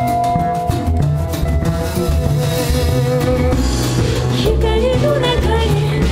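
A live band of drums, upright bass, piano, guitar and violin playing a steady groove, with a woman singing over it; her voice slides and bends in pitch in the second half.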